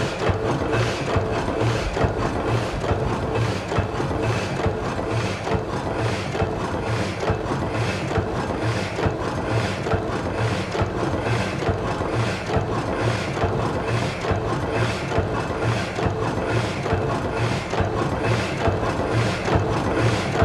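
Experimental music built from looped printing-press and machinery sounds: a dense, steady mechanical rhythm of repeated clatter over a pulsing low hum.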